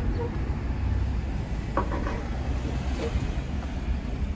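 Wind buffeting the microphone as a steady low rumble, with a couple of faint knocks about two seconds in.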